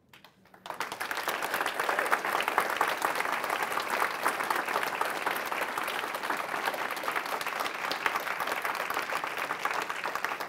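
Audience applauding: a few scattered claps, then full, sustained applause from under a second in.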